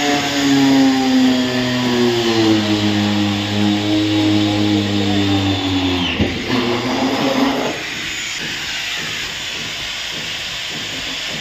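Angle grinder spinning a core bit through the plastic wall of a water tank: a steady motor whine over a hiss, its pitch sagging slightly under load. About six seconds in the sound changes to a lower, hazier noise.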